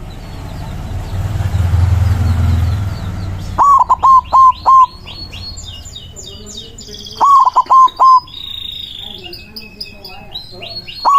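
White zebra dove (perkutut) cooing: a phrase of four loud, quick notes, given twice, with a third phrase starting at the end, while small birds chirp faintly and high in the background. A low rumbling noise fills the first three seconds or so before the cooing begins.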